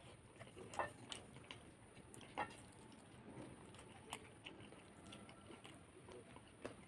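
Faint close-up eating sounds: chewing a mouthful of rice and chicken feet curry, with sharp wet mouth clicks scattered through, the loudest about a second in and again past two seconds, and fingers squishing rice on the plate.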